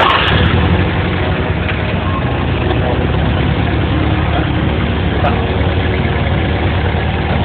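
EFI engine just started and idling steadily, a little louder in the first half second after catching.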